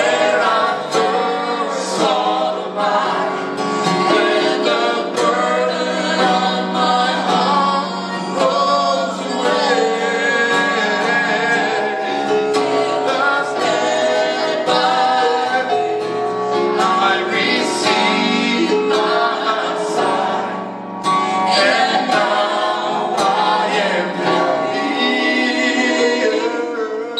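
A worship song: voices singing a melody over instrumental backing, with the music briefly thinning about twenty seconds in.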